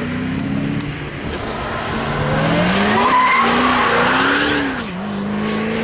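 Ford Shelby GT500's supercharged V8 revving hard through a drift on a wet track, its pitch climbing to its loudest about three to four seconds in, then dropping sharply near five seconds as the throttle comes off, with the tyres sliding and squealing.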